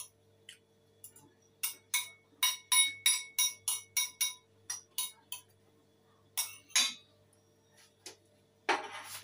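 Metal spoon clinking against a ceramic bowl: a run of quick ringing clinks, about three a second, then two more a little later, and a brief burst of noise near the end.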